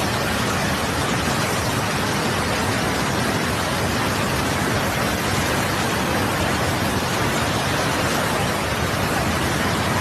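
A steady, even rushing noise of water, unbroken and at a constant level.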